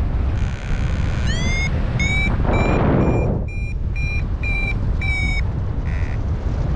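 Paragliding variometer beeping, about two beeps a second, with a few rising chirps first: the climb tone that signals the glider is going up in lift. Steady wind rushing over the microphone underneath.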